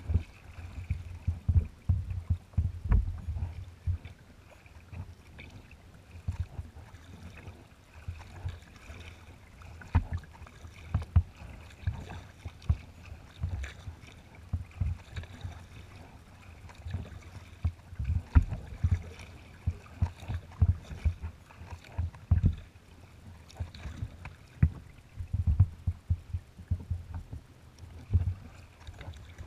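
Small waves slapping and splashing against the hull of a moving kayak, heard as irregular low thuds over a faint water hiss.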